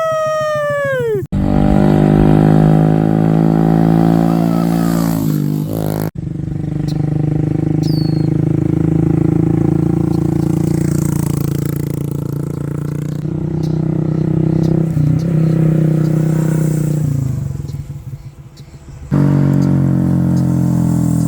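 A motor-vehicle engine running, its pitch rising and falling as it speeds up and slows down, in several pieces broken by sudden cuts.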